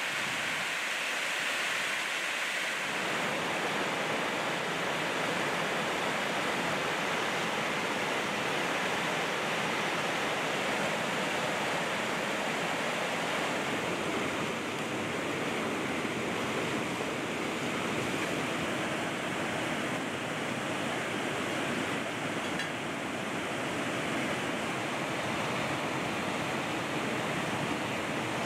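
Fast mountain river rushing over rocks: a steady whitewater hiss that grows fuller and deeper about three seconds in.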